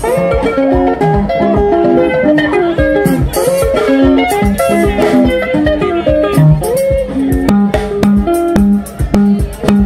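Live sungura band music: quick interlocking electric guitar lines over bass guitar and a steady drum beat.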